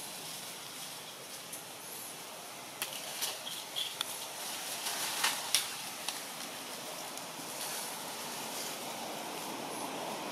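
Outdoor ambience among trees: a steady hiss, with a run of sharp clicks and snaps between about three and six seconds in.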